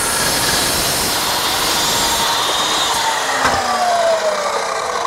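Evolution 14-inch chop saw with a Rage multi-purpose blade cutting through a 2x4 with a screw in it, a dense whirring rasp. After about three seconds the motor is let off and winds down in a falling whine, with a click partway through.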